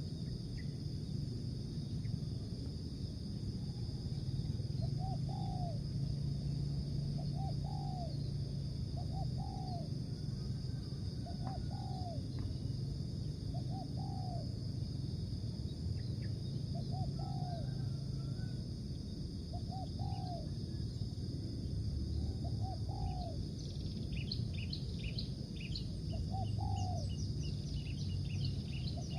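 Spotted dove cooing: short, arched coos repeated every one to two seconds, over a steady low hum and a constant high insect-like buzz. Quick high chirps from a small bird come in near the end.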